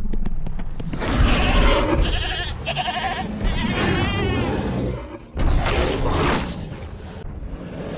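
Goat bleating several times, the last bleat wavering. About five and a half seconds in comes a loud, rough roar.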